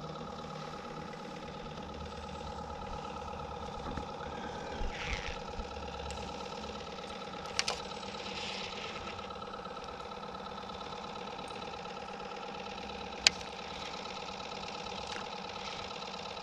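A boat motor running steadily with an even hum. Two or three short sharp clicks sound over it, the sharpest a little after the middle.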